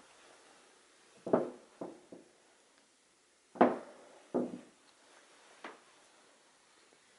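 Footsteps of the person carrying the camera across a carpeted floor: six dull, irregular thumps, the loudest a little past halfway.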